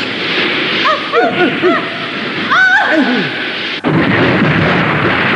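Cartoon characters crying out as they slide and tumble down, a few short yelps and then one long falling yell, over a loud steady rushing noise. The sound breaks off suddenly a little before four seconds in, and the rushing picks up again with a deeper rumble.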